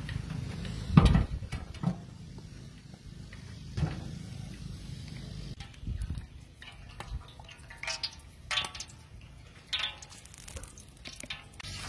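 A large iron wok set down on a metal fire barrel with a heavy thump about a second in, followed by a few lighter knocks. Cooking oil is then poured into the dry wok, with several short pitched squeaks near the end.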